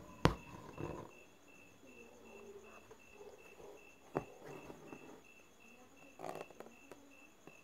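Faint, even insect chirping, repeated about four times a second, like a cricket. A sharp tap comes about a quarter-second in and another about four seconds in.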